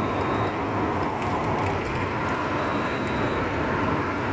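Steady road noise of a moving car: engine and tyres making an even rush.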